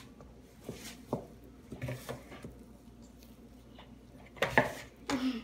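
A few light knocks and taps of a utensil against a mixing bowl as flour is stirred into a dough, louder near the end.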